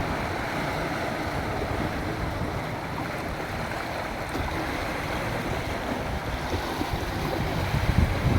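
Sea surf washing steadily onto the shore, with a few stronger low rumbles of wind on the microphone near the end.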